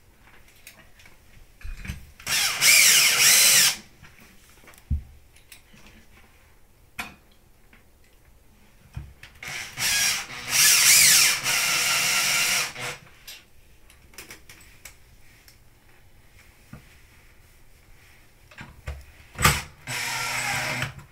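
Cordless drill driving #12 stainless steel screws through a steel flange repair plate into the floor around a toilet's closet flange, its whine wavering in pitch. It runs three times: briefly about two seconds in, longer from about ten to thirteen seconds, and briefly near the end, with small clicks of screw handling between.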